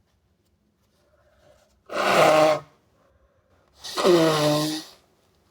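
A person sneezing hard twice, about two seconds apart, each sneeze a sudden voiced burst with a loud rush of air. The second is longer, its cry falling in pitch.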